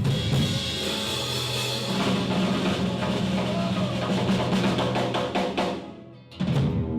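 Live blues band (guitar, upright double bass, drum kit) ending a song. Drum rolls and crashing cymbals run over a held chord with a low bass note, die away near six seconds, then the band comes in with one more hit.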